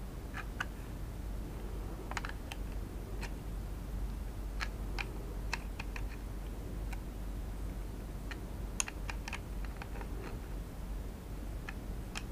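Small irregular metallic clicks and ticks as an open-end wrench works the brass antenna-cable connector nut on a remote controller's opened plastic casing, tightening it, over a low steady hum.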